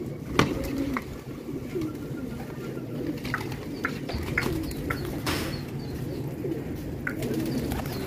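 A flock of domestic fancy pigeons cooing continuously, many voices overlapping. A sharp knock comes near the start, short clicks are scattered through, and a brief burst of wing flapping comes about five seconds in.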